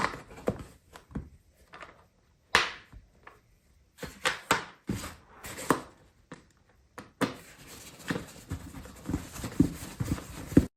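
Irregular clicks and light knocks of small screws and hard plastic parts being handled while screws are put into a suitcase's plastic wheel housing. In the last few seconds there is a denser stretch of scraping and clicking.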